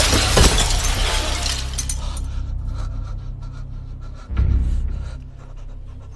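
Film fight sound effects: a loud crash at the start that dies away over about two seconds, then a second heavy hit about four seconds in, over a steady low drone.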